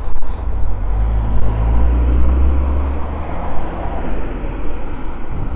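A road vehicle passing on the street alongside: a low engine rumble and tyre hiss that build up over the first two seconds or so, then slowly fade.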